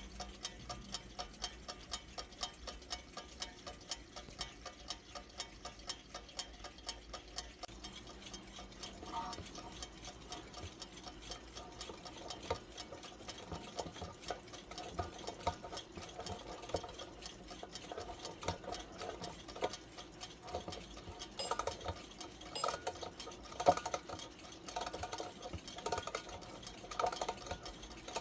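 Trenkle wind-up mechanical alarm clock ticking at a fast, even rate. From about nine seconds in, irregular clicks and rattles join the ticking, growing louder in the last few seconds.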